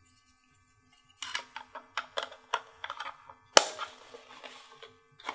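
Plastic battery compartment cover of an Oregon Scientific WMR300 weather station console being handled and fitted back on: a run of light plastic clicks and knocks, then one loud sharp snap about three and a half seconds in as it clips shut.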